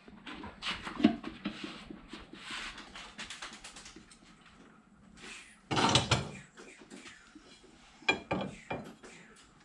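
Steel lawn mower blades clinking and scraping against each other and the stool as one is lifted off the stack and handled, with a loud metal clatter about six seconds in and more knocks a couple of seconds later.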